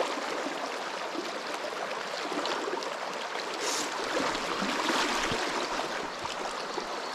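River water flowing steadily over a shallow, choppy stretch of current.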